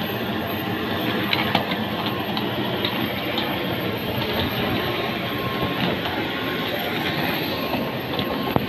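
Small wheels of a child's hard-shell rolling suitcase rattling steadily over tiled paving, with light clicks as they cross the tile joints.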